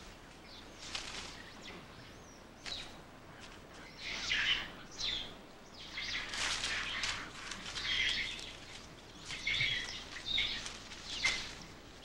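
Rhesus macaques calling: a string of short, high-pitched squeals and screeches, some gliding up and down in pitch, scattered through the stretch, the sort of vocal squabbling that macaque disputes mostly consist of.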